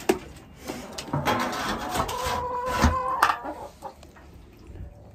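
Domestic hens clucking, with one long drawn-out call held for about a second in the middle and a couple of sharp knocks; the flock goes quieter near the end.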